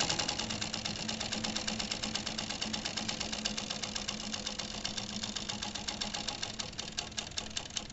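Consew 282R-1 postbed needle-feed industrial sewing machine, driven by a 3/4 HP servo motor, stitching through a bag's lining: a fast, even clatter of needle and feed strokes over a steady motor hum. The stitching slows near the end.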